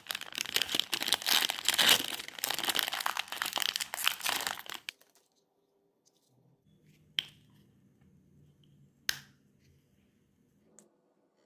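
Crinkly wrapping of a toy surprise bag being torn open and crumpled by hand for about five seconds, then two sharp clicks a couple of seconds apart.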